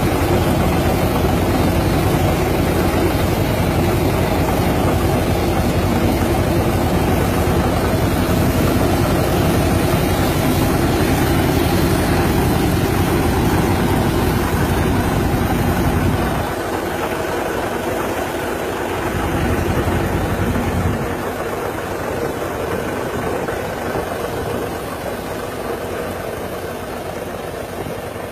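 Tractor engine running steadily while its mounted power sprayer blasts mist, with a rushing hiss over the deep engine note. A little past halfway the deep engine sound drops back, briefly returns, then quietens slowly.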